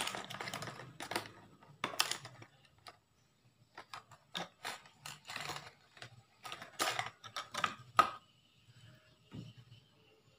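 Stiff clear plastic lure packaging being handled and opened by hand: an irregular run of sharp crinkles and clicks, dying down about eight seconds in.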